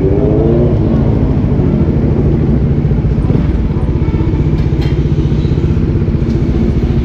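Kawasaki Z900's inline-four engine with a loud exhaust, running at low speed, with a short rev that rises and settles back in the first second or so.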